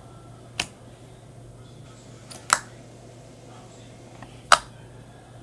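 Slime being played with, making sharp pops: three loud pops about two seconds apart, each of the last two with a fainter click just before it.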